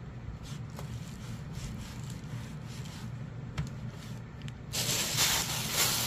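Faint rubbing as hands smooth indigo-dyed cloth wound on a wooden hongdukkae roller, with a few soft strokes. Nearly five seconds in, a much louder rustling starts as a black plastic bag is brought over the roll to wrap it.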